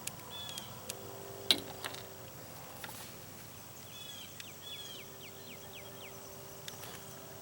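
A small bird calls a quick run of short, falling chirps midway through. A few sharp clicks and knocks come before it, the loudest about a second and a half in, over a faint steady hum.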